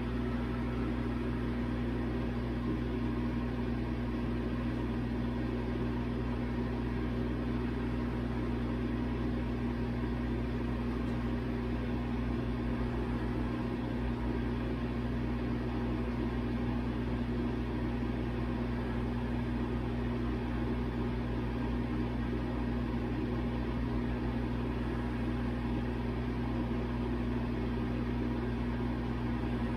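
A machine running with a steady, constant low hum.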